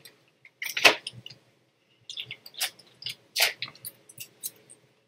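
Small plastic candy wrappers crinkling and tearing as they are worked open by hand, in scattered short crackles, loudest about a second in and again past the middle.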